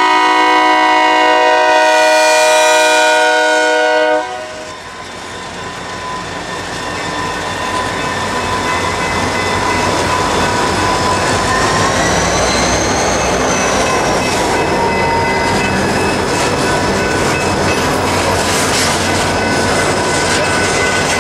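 Diesel freight locomotive's multi-chime air horn sounding one long blast for about the first four seconds, then the locomotives and a string of covered hopper cars rolling past with a steady clickety-clack of wheels over the rails. About halfway through a high wheel squeal rises and falls.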